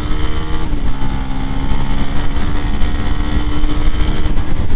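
Honda RS150 underbone's 150cc single-cylinder engine running at a steady cruising speed, its pitch dipping slightly about half a second in, under a heavy low rumble of wind noise.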